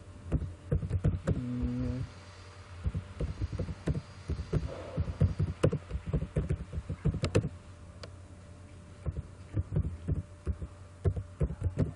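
Computer keyboard keys clicking in quick, irregular runs as a line of text is typed, over a steady low hum.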